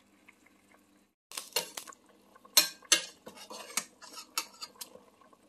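Metal ladle clinking and scraping against a stainless steel pot as chicken drumsticks are stirred and turned over. A run of sharp clanks starts about a second in, the loudest just past the middle.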